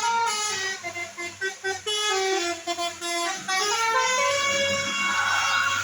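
Bus telolet horn playing a fast tune of short stepping notes, then a few longer held notes near the end.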